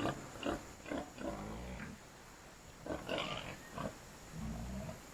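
Pigs grunting: a string of short, irregular grunts.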